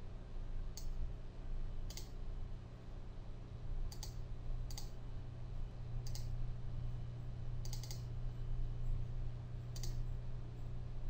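Computer mouse button clicking about seven times at irregular intervals, a couple of them in quick pairs, over a steady low hum.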